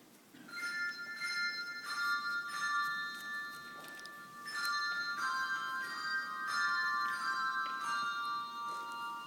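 A handbell choir playing: chords of tuned handbells struck together, each note ringing on and overlapping the next, the music starting about half a second in.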